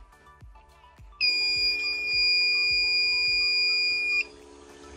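Alarm on a Wayne battery backup sump pump sounding one loud, steady, high beep for about three seconds, set off by raising the backup pump's float switch. It starts about a second in and cuts off sharply. A lower steady hum starts with it and keeps going.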